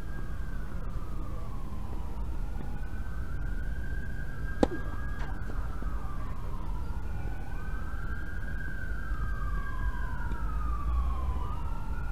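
Emergency-vehicle siren wailing, its pitch sliding slowly down and back up in overlapping sweeps, over a steady low rumble. A single sharp knock sounds about four and a half seconds in.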